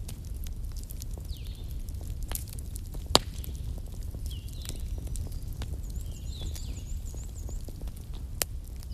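Wood fire crackling over a steady low rumble of flames, with scattered sharp pops; the loudest comes about three seconds in and another near the end. Faint high chirps recur in the background.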